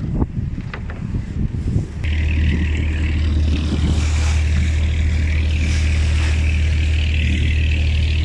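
Wind buffeting the microphone, then about two seconds in the boat's engine drone starts abruptly and runs steadily, loud and even.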